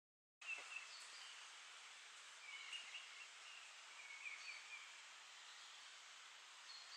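Faint outdoor forest ambience that cuts in abruptly about half a second in: a soft, steady hiss of air with several brief, faint, high bird chirps.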